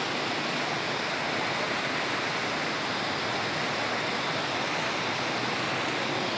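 Rain falling steadily, a continuous even hiss with no breaks.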